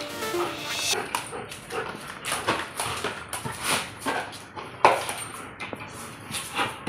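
German shepherd mouthing and chewing a green rubber toy, giving a string of irregular short sounds, the loudest about five seconds in.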